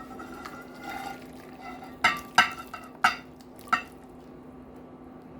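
A serving utensil scraping and clinking against a cooking pot and plate as cooked chicken and potatoes are served out. There are four sharp, ringing clinks between about two and four seconds in, over a steady low hum.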